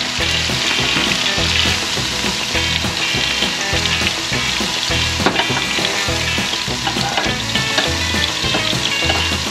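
Diced bell peppers and tomato sizzling steadily on a hot camp-stove griddle, with a metal spatula scraping and turning them.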